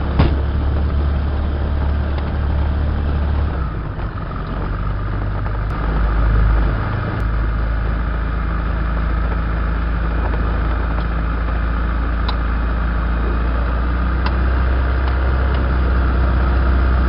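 Ultralight aircraft's piston engine and propeller running at low taxi power, heard from inside the cockpit. The engine note shifts a few seconds in and briefly swells with a little more power about six seconds in, then runs steady.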